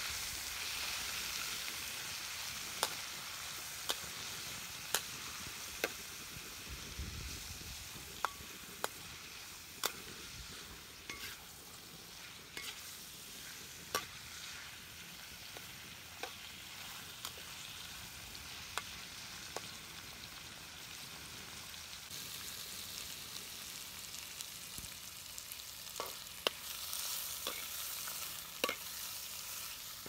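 Mushrooms sizzling in a steel wok as they are stir-fried, with the metal ladle scraping and clinking sharply against the pan at irregular moments.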